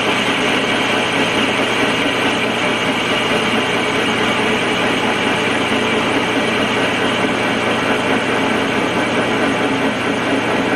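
Metal lathe running steadily while turning a live-steam locomotive wheel held in the chuck, its cutting noise over a steady low hum.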